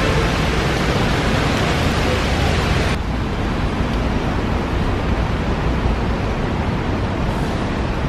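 Heavy rain falling on paving and puddles, a dense steady hiss. About three seconds in it gives way to a duller, lower street noise of traffic on wet roads.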